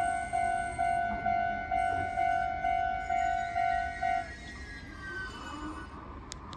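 Japanese railway level-crossing alarm, newly replaced, ringing a repeated electronic bell tone a little over twice a second. It stops about four seconds in, which is the sign that the train has cleared the crossing.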